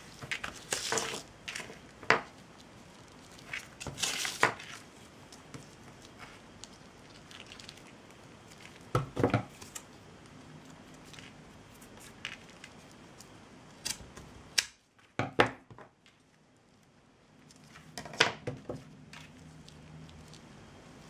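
Scattered handling noises of hand craft work: short rustles and crinkles with a few light knocks and clicks of materials and tools on the work surface, coming a few seconds apart over a quiet room tone.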